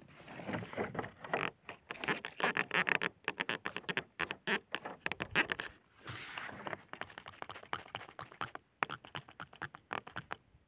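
Clumpy dry soil being scraped and crumbled by hand: a fast, dense run of crackling scratches that thins into sparser clicks in the second half.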